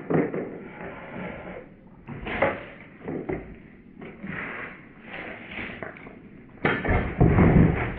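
Irregular clunks and scrapes of a chainsaw being handled on a plastic table, with a louder, longer burst of noise near the end.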